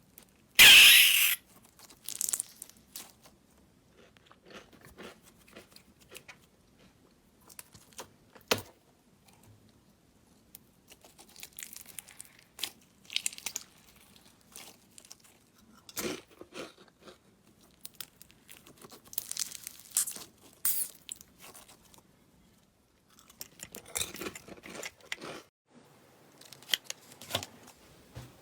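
Slime being squeezed and pressed by hand, giving irregular crunching, crackling and squelching sounds. There is one much louder burst about a second in, then scattered smaller crackles.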